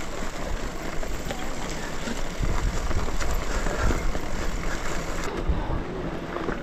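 Mountain bike rolling over a rough dirt trail: tyre noise on dirt and stones with scattered clicks and rattles from the bike. Wind rumbles on the microphone, heaviest in the middle.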